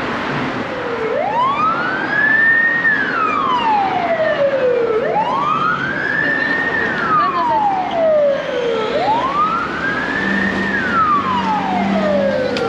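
Emergency vehicle siren wailing, a slow rise and fall in pitch repeated three times about every four seconds, over street traffic noise.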